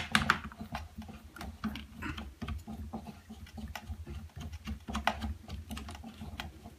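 Small irregular plastic clicks and rattles from hands working an action camera's GoPro-style mount and its thumbscrew on a plastic Syma X8C quadcopter body, the loudest clicks at the very start.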